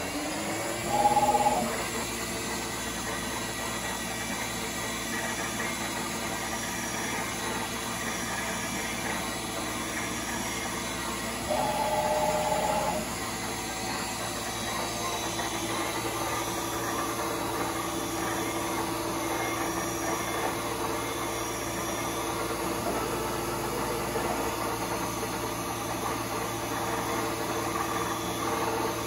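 Tree 425 Journeyman CNC knee mill's spindle running steadily, with the hum of its servo axes as it works through a programmed drilling cycle. Two short, louder tones stand out about a second in and again near the middle.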